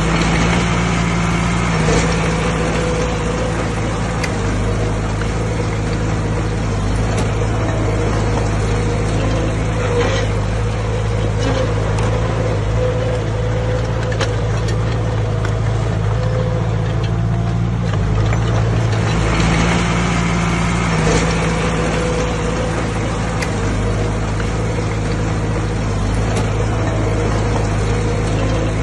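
Heavy diesel engine of road-building machinery running steadily, its note shifting a little now and then.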